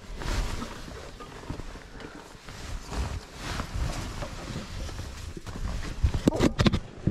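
Shoes scuffing and stepping on rock and hands brushing the stone while climbing narrow rock steps. A cluster of sharp knocks comes about six seconds in.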